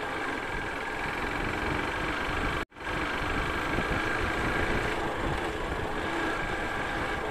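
Yamaha SZ single-cylinder motorcycle running on the move, with steady wind rush on the microphone. The sound cuts out completely for a moment about a third of the way in, then resumes.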